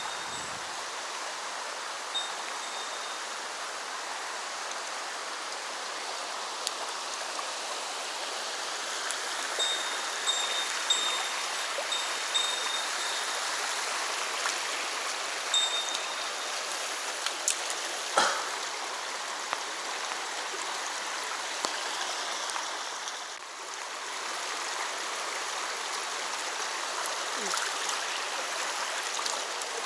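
Mountain stream running over rocks, a steady rush of water, with a few faint thin high calls and one sharp click about eighteen seconds in.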